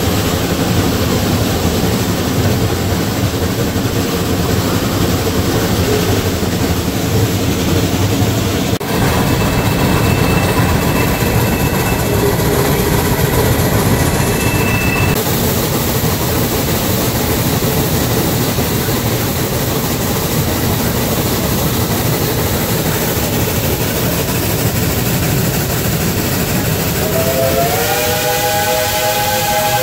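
Shay geared steam locomotive running close by, working hard while pushing the train uphill, a steady loud mix of exhaust and running gear. Near the end a steam whistle blows several notes at once, sliding up in pitch as it opens and then held.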